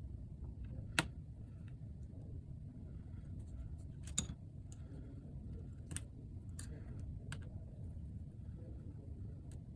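Scattered small sharp clicks of a precision screwdriver and tiny screws on a MacBook Pro's logic board and case, as the board screws are taken out, over a steady low hum. The sharpest clicks come about a second in and about four seconds in.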